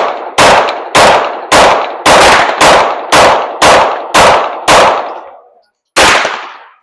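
Semi-automatic firearm fired in a quick string of about eleven shots, roughly two a second, each with a ringing echo, then a single last shot after a short pause.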